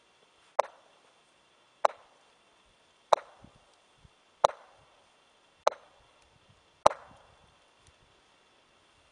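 Golf club striking golf balls off a frozen lake's snowy ice, six sharp cracks in a row about one and a quarter seconds apart, each ringing out briefly.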